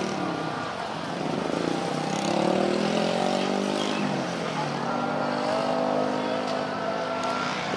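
Several motorcycles and a van driving past close by, their engines overlapping, the pitch rising and falling as they pass and speed up.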